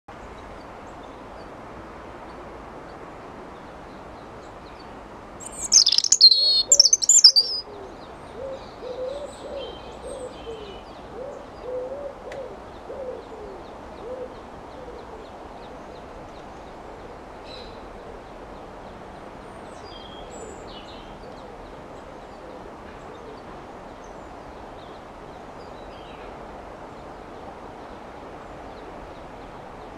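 European robin singing a loud, brief burst of high, rapid, warbling notes about six seconds in. It is followed by several seconds of low, repeated cooing in the background, and later a few faint high chirps.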